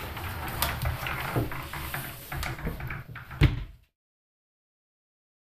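A boy squeezing into a wardrobe compartment: rustling and knocking against the wooden cabinet, with a sharp knock about three and a half seconds in that sounds like the wardrobe door being shut. Just after that the sound cuts off to dead silence.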